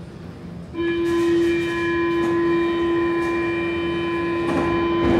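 A steady electronic buzzer tone from a stopped Stockholm metro train, starting about a second in and holding one pitch for about five seconds.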